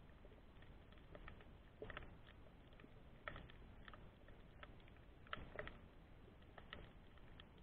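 Faint underwater sound picked up by a submerged camera: irregular sharp clicks and crackles, some in quick pairs, over a low, steady background rumble.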